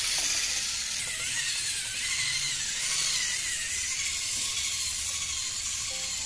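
Small battery-powered handheld whisk whirring steadily as it beats a mango-and-cream mixture in a glass bowl, a continuous high hissing whir.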